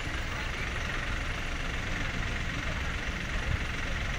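A vehicle engine running steadily, a continuous low rumble under an even hiss.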